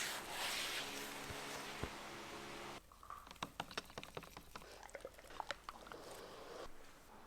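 A power tool running steadily for a few seconds, then stopping abruptly. Irregular small clicks and taps follow.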